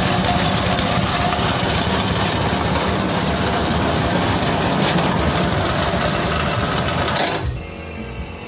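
Coconut-husk grinding machine (cocopeat and cocofiber shredder) running loudly and steadily. About seven seconds in, the sound drops sharply to a quieter, lower hum.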